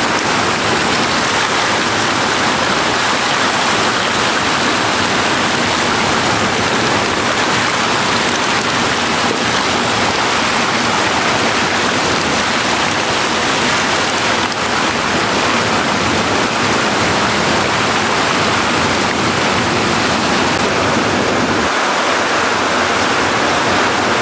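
Steady splashing of trout thrashing at the surface of a concrete fish-farm pond as they are fed, over the rush of water pouring into the pond.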